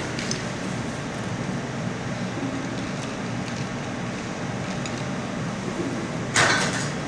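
Steady background room noise in a bar with a hum like air conditioning. About six and a half seconds in comes a short, loud burst of noise.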